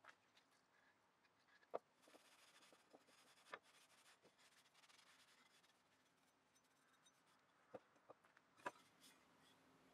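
Faint handling sounds of a restored hand tool's metal head and wooden handle: soft rubbing as the head is worked into the handle, and a few light knocks on a wooden bench as it is set down.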